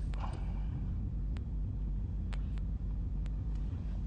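Steady low background hum or rumble of room tone, with a few faint clicks.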